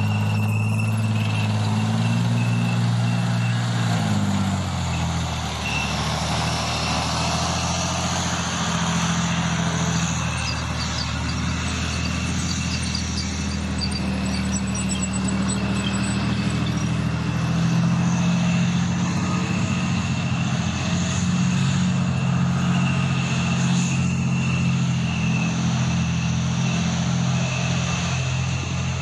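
M60 tank's V12 diesel engine running as the tank drives on its tracks, the engine note dropping about four seconds in, with a steady high whine over it.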